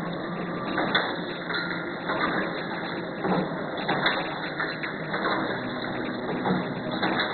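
Automatic disposable-cup packing machine running: a dense mechanical clatter with irregular knocks about every second and many small clicks as its pushers move stacks of plastic cups along the conveyor.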